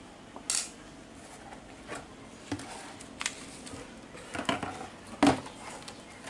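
Clicks and knocks from a computer active subwoofer's wooden cabinet being taken apart by hand, its back panel carrying the transformer lifted off. The knocks are scattered and irregular, the loudest about five seconds in.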